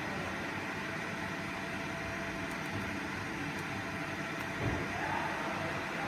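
Steady hum of workshop machinery with a few faint steady tones in it, and a soft thump about four and a half seconds in.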